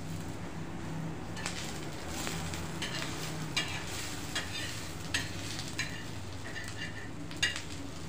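Sliced onions sizzling in a little oil on a hot metal tava, with a metal spatula scraping and clicking against the griddle again and again as they are stirred.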